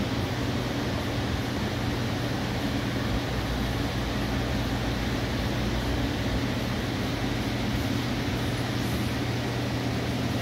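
A machine running steadily in the garage: an even low hum over a constant rush of air.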